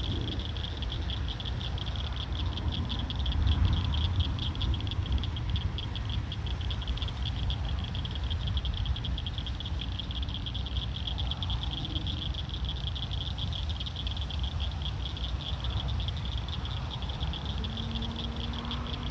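A steady night chorus keeps up a high, fast-pulsing trill throughout, over a low rumble that swells briefly about four seconds in.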